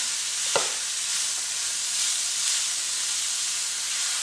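Grated beetroot and coconut mix sizzling in a pan as it is stirred with a silicone spatula: a steady hiss with one light knock about half a second in.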